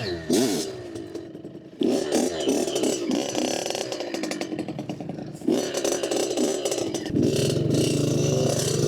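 Dirt bike engine revving up and down under changing throttle. It drops away about a second in, picks up again, and settles into a steadier note near the end.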